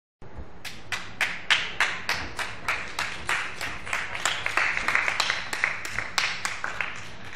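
Hands clapping in a steady rhythm, about three claps a second, as people clap along in time; the clapping grows thicker and denser around the middle, then thins again near the end.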